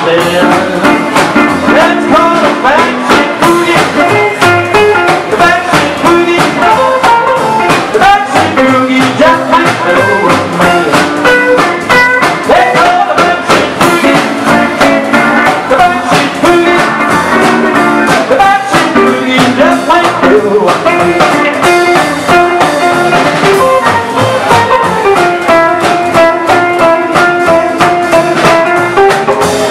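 Live rock and roll band playing with a steady beat: acoustic and hollow-body electric guitars, upright double bass and drum kit.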